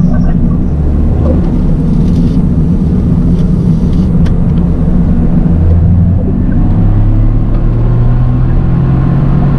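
Toyota GR Yaris three-cylinder engine running under way with road noise, its pitch climbing steadily from about halfway through as the revs rise.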